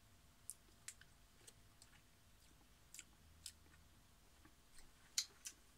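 Near silence, broken by a dozen or so faint, short clicks scattered through it.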